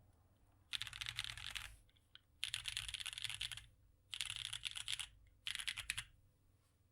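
Fast typing on a custom Portal65 mechanical keyboard with lubed and filmed Corsa light tactile switches on an FR4 plate, capped with GMK keycaps. The keys clatter in four bursts separated by short pauses, with a little case hollowness that the owner says remains.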